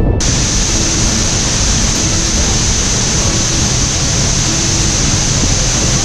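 Waterfall heard up close: a loud, steady rush of falling water and spray that starts abruptly just after the beginning. Faint music runs underneath.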